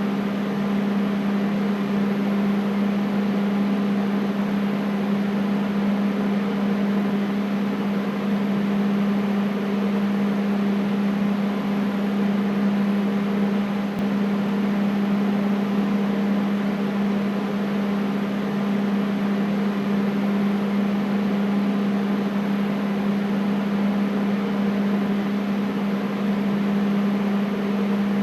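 Air conditioner running steadily: a constant low hum with an even airy rush over it, unchanging throughout.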